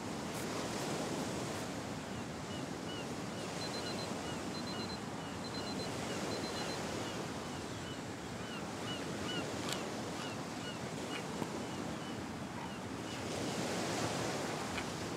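Seaside ambience: a steady wash of surf and wind, with a run of small high chirps repeating two or three times a second through the middle and a few light clicks.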